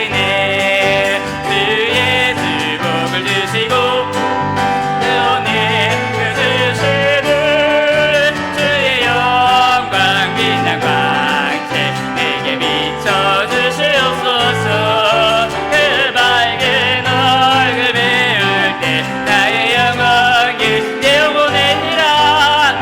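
A church worship band playing live, with piano and bass, continuous without pauses.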